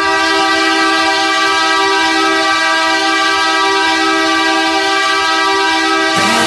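Ice hockey goal horn blaring one steady, loud multi-tone chord for about six seconds. Near the end it gives way to the start of the goal song.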